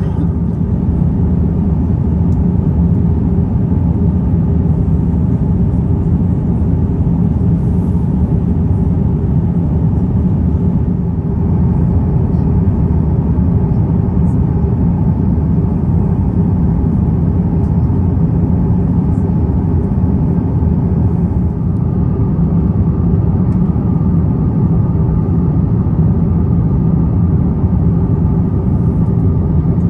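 Steady cabin drone inside an Airbus A350-900 in flight: the low, even rush of airflow and the Rolls-Royce Trent XWB engines heard from a passenger seat.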